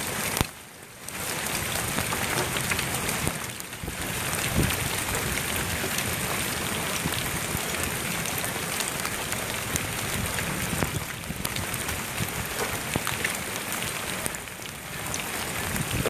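Rain and hail coming down steadily on a lawn: a continuous hiss of falling water, dense with small ticking impacts.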